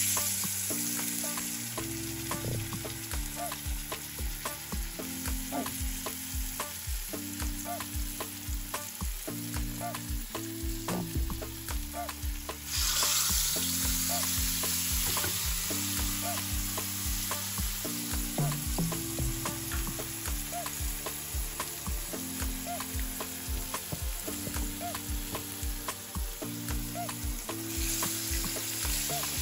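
Smoked catfish frying in hot oil with a steady sizzle that jumps louder about 13 seconds in and again near the end, as more pieces go into the pan. Under it is background music with low bass notes and a steady beat.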